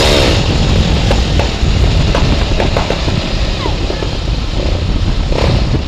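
Motorcycle with an aftermarket exhaust running under way, a loud deep rumble with a string of sharp exhaust pops in the middle.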